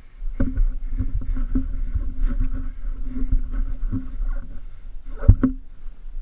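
Mountain bike ridden over rough ground, heard from a helmet camera: a low rumble with the rattle and knocks of the bike, and one hard, loud knock about five seconds in.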